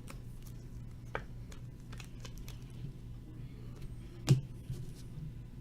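Baseball trading cards being handled and flipped through, with a few light clicks and one sharper tap about four seconds in, over a steady low hum.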